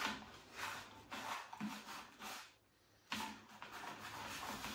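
Hands mixing and rubbing dry fishing groundbait in a box, a run of soft rustling, scraping strokes with a short silent break a little over halfway.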